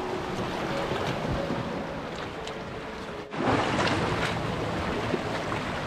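Small sea waves washing over shoreline rocks, with wind buffeting the microphone; the surf gets louder about three seconds in.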